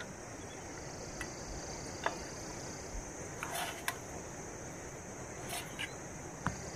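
A few short knocks and scrapes as a wooden board and a steel pan of food are set down on the tent floor and a spoon clinks and scrapes in the pan. A steady high-pitched drone runs underneath.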